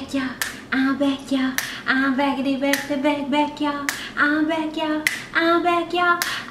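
A woman singing a tune and snapping her fingers on a steady beat, with a sharp snap about once a second.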